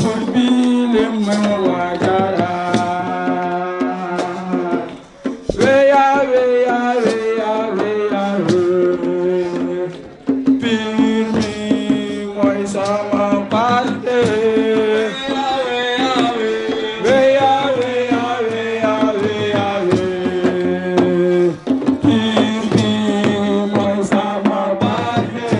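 Loud music with drums beating throughout under long held melodic notes. The melody breaks into new phrases about five seconds in, about ten seconds in and again near the end.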